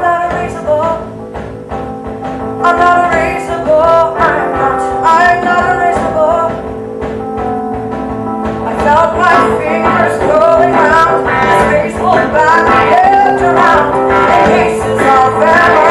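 Live rock-musical number heard from the audience: a singer over band accompaniment with held chords underneath. The singing comes in about two and a half seconds in and gets louder around nine seconds.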